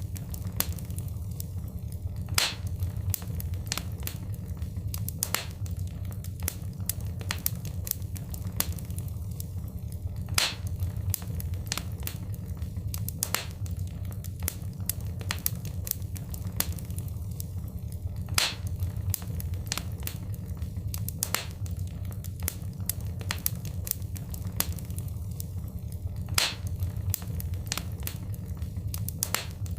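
Wood fire in a fireplace crackling and popping over a steady low rumble of the flames, the sharp pops scattered several to the second. The same stretch of sound repeats about every eight seconds, as in a looped recording.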